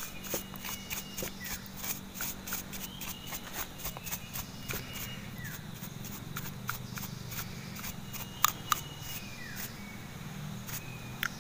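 Paintbrush bristles scrubbing the outside of a dirty chainsaw carburetor: a quick, irregular run of scratchy strokes and clicks, several a second, over a low steady hum.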